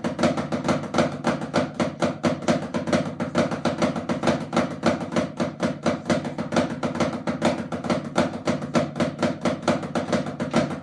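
Drumsticks playing a flam etude on a drum practice pad: flams on alternating hands mixed with triplet sticking, in a steady, even stream of strokes.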